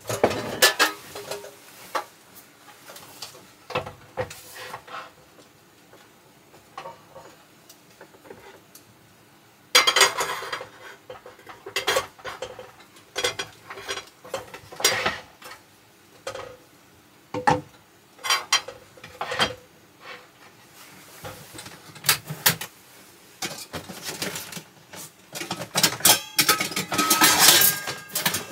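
Cookware and utensils being handled at close range: irregular clinks, knocks and taps, with denser clattering and rustling about ten seconds in and again near the end.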